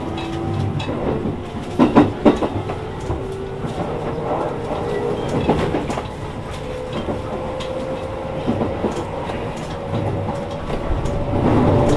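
Interior running sound of a Shin-Keisei N800-series train with a Toyo IGBT VVVF inverter: the traction motors' whine rises slowly and steadily in pitch as the train accelerates away from a station. A few rail-joint clacks sound about two seconds in.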